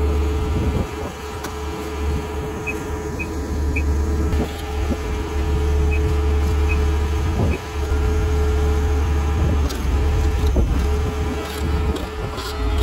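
Sumitomo HA45W asphalt finisher's diesel engine running steadily with a deep hum, with a few sharp metallic clanks near the end.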